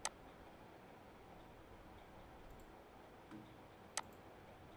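Two sharp computer mouse clicks, one at the very start and one about four seconds in, over faint room tone.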